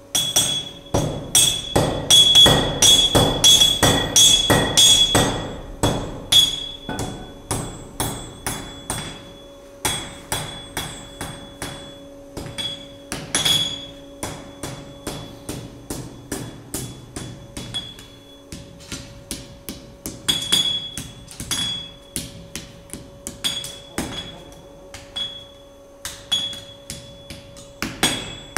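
Hand hammer striking red-hot iron on a steel anvil, each blow with a bright ring from the anvil. A fast run of heavy blows in the first six seconds gives way to lighter, steadier blows, about two a second, with short pauses between runs.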